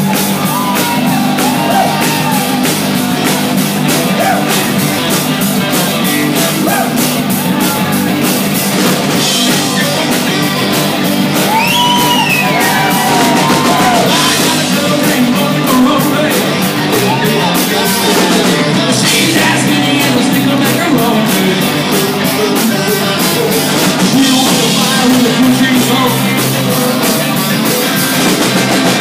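Live rock and roll band playing loud: electric guitars, drum kit keeping a steady beat and saxophone, with several singers yelling and singing into one microphone.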